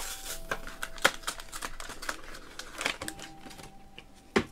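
Irregular light taps, clicks and faint crinkles of trading cards and foil booster-pack wrappers being handled on a tabletop, with a sharper tap near the end.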